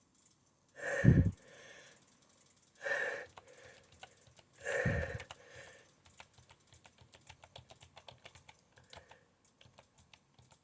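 A person sneezes three times, about two seconds apart, the first sneeze the loudest. From about six seconds in, computer keyboard typing follows as a run of quick clicks.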